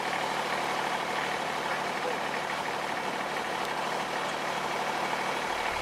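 Kubota BX2680 tractor's three-cylinder diesel engine running steadily.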